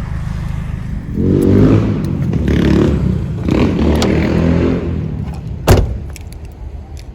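Volkswagen Saveiro pickup's engine running, growing louder and shifting in pitch between about one and five seconds in, with a sharp thump near six seconds.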